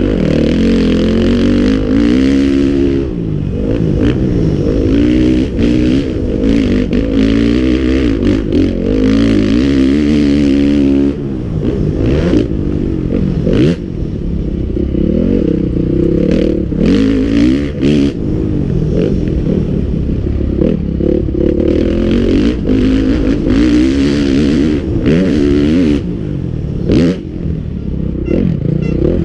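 Motocross bike's engine at race pace, heard close from a camera on the bike, its pitch rising and falling again and again as the throttle is opened and closed through the corners and gears. Wind rush and frequent knocks and clatter from the bike over the rough track run with it.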